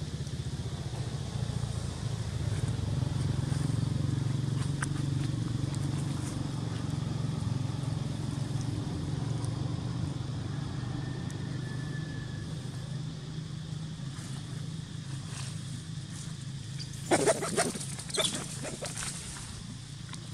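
A motor engine hums steadily at a low pitch, growing louder a few seconds in and then easing off slowly. Near the end there is a short burst of rustling crackles.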